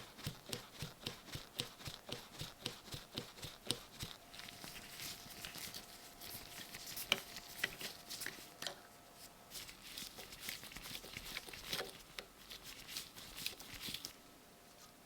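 Hand-tool work on a small metal part: light, quick strokes, about three a second at first, then a more irregular run of scraping and ticking that stops about a second before the end.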